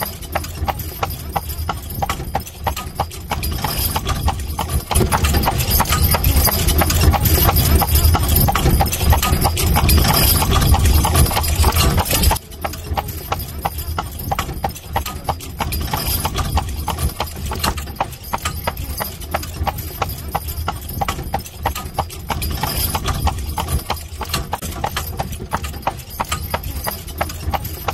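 A carriage horse's hooves clip-clopping at a steady trot, many quick hoof strikes in an even rhythm, over a low rumble that is louder in the first half and drops away suddenly about twelve seconds in.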